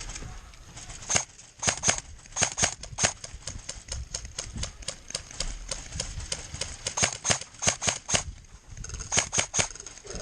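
Airsoft guns firing: sharp cracks in single shots and short quick strings at an irregular pace, pausing about eight seconds in before three more shots in quick succession.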